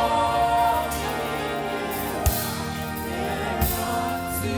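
Gospel praise music with a sung note held for about the first second over sustained band accompaniment, and two drum hits later on.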